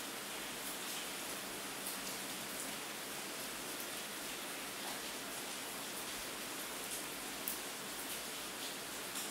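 Steady rain falling: an even hiss with scattered drop ticks, one a little louder about seven seconds in.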